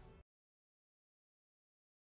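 Silence: the last faint tail of a faded-out music track stops a quarter of a second in, and nothing follows.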